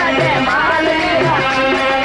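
Marwari folk music of a sung katha: a gliding melodic line over low drum strokes about once a second.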